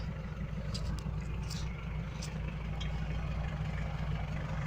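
Mitsubishi Pajero engine running steadily with a low drone, with a few short ticks over it in the first few seconds.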